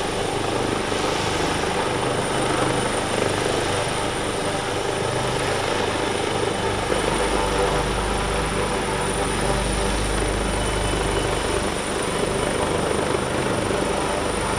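Helicopter rotor and engine running steadily.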